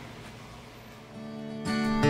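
A second of quiet room tone, then guitar music fades in about halfway through and grows louder.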